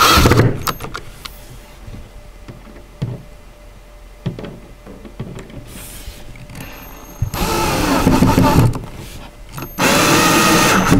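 Electric drill driving screws into the shelf panels, in three runs of the motor: a brief one at the start, a longer one about seven seconds in, and another near the end. A few small knocks between the runs.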